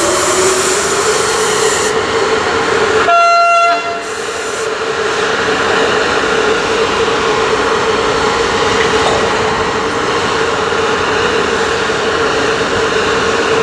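Freight train hauled by a CFR Marfa class 40 electric locomotive rolling slowly past, its wheels and wagons running with a steady whine. A single short train horn blast sounds about three seconds in.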